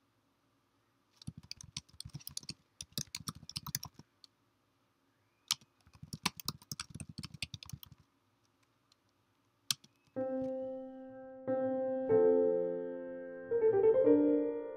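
Typing on a computer keyboard: two quick runs of key clicks and a couple of single clicks. About ten seconds in, a piano starts playing slow chords that ring out and fade between strikes.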